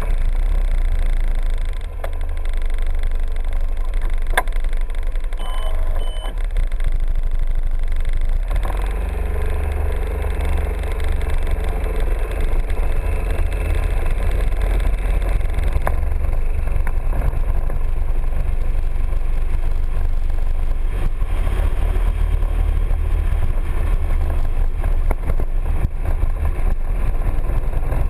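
Piaggio MP3 three-wheeled scooter riding along a road: its engine runs steadily under a heavy, constant low rumble of wind on the scooter-mounted microphone.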